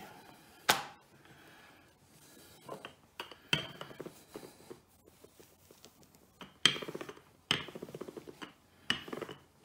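Wooden rolling pin rolling out a sheet of fresh pasta dough on a countertop: several rolling strokes, each a rough rumble with knocks of the pin against the counter. There is a single sharp knock about a second in, before the rolling starts.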